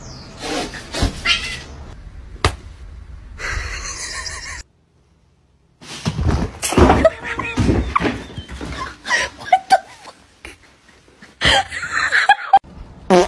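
Domestic cats meowing across a run of short home clips, with a couple of sharp knocks in the first few seconds and about a second of silence near the middle.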